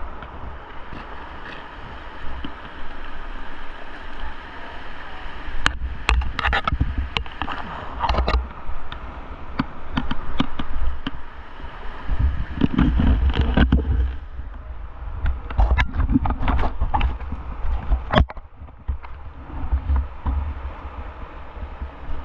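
Fast, high river water rushing around a kayak, with irregular splashes and knocks of water against the boat, busiest between about six and eighteen seconds in.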